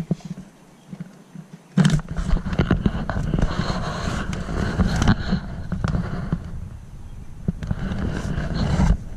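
Handling noise from a handheld camera being moved about under a vehicle: a sudden knock about two seconds in, then continuous low rumbling and scraping with scattered knocks that stops briefly near the end.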